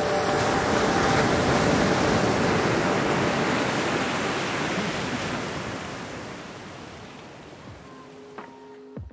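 Ocean surf breaking on a beach: a steady rush of waves that gradually fades out over the second half.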